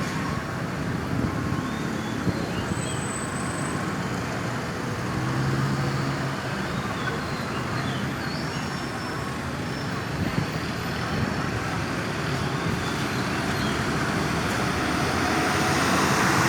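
Steady road traffic: engines and tyre noise of passing vehicles, with a vehicle coming closer and getting louder near the end. No siren is sounding.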